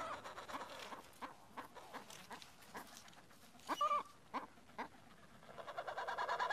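Adélie penguins calling in a nesting colony: scattered short squawks and clicks, with a louder call about four seconds in. The calling swells near the end.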